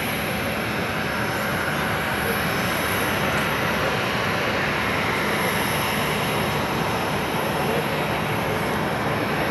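Boeing 737-800's twin CFM56-7B turbofan engines at taxi power as the airliner taxis and turns: a steady rushing noise with a faint high whine.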